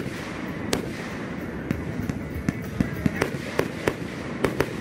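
Consumer aerial fireworks bursting overhead: about a dozen sharp bangs over a steady hiss. They come about a second apart at first and then faster, several a second, near the end.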